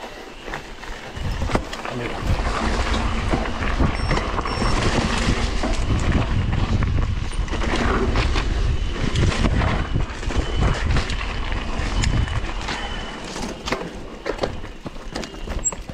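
Specialized mountain bike descending a rough dirt trail at speed: wind buffeting the microphone, tyres rumbling over the dirt, and the bike rattling and clattering over bumps. It eases off near the end into sharper separate clicks and knocks.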